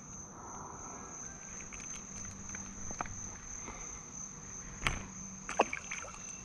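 A steady high-pitched insect chorus of evening crickets or cicadas, with small handling clicks as a bluegill is unhooked from a popper. A sharp sudden sound about five seconds in, near where the fish is let back into the water, is likely its splash.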